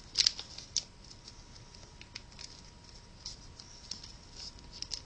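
Origami paper rustling and crinkling as a folded model is opened and pressed closed, in short crisp bursts, the loudest twice in the first second.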